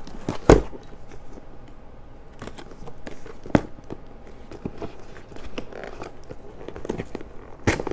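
Cardboard kit boxes being handled and opened: scraping and rustling, with sharp knocks about half a second in, again around three and a half seconds, and near the end.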